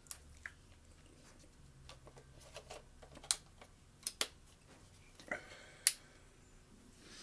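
Handling noise with several sharp plastic clicks, the loudest a little past three seconds in and near six seconds, from a Canon 80D camera and its battery being handled to check for a charge.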